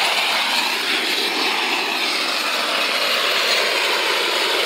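Gas blowtorch burning with a steady, even rushing noise. Its flame is being played over waste-oil-soaked wooden boat planks to heat the oil into the wood.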